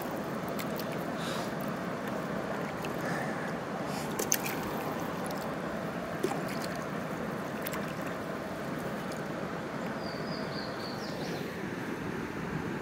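River water flowing and gurgling steadily around a kayak, with a few light clicks and a brief high-pitched sound about ten seconds in.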